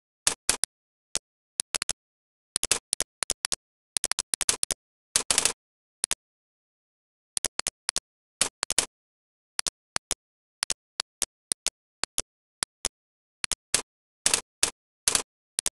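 Computer mouse and keyboard clicks, short and sharp, coming irregularly and often in quick clusters, with dead silence between them.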